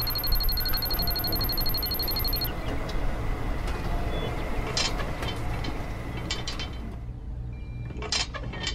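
A fuel-pump meter sound: rapid even ticking with a thin high steady tone for about two and a half seconds. After that a low steady hum runs on, with a few sharp clicks as a plastic cable plug is pushed into the toy tractor's filler cap and into the toy pump.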